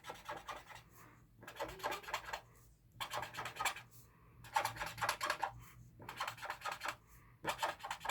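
Marker tip scratching across paper in quick back-and-forth strokes, in short bursts with brief pauses, as small shapes are coloured in.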